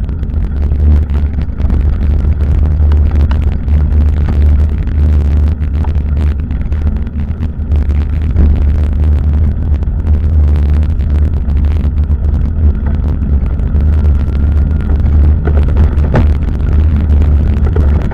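Steady low rumble of wind buffeting the microphone of a bicycle-mounted camera while riding, mixed with road vibration, with a couple of small knocks from bumps near the end.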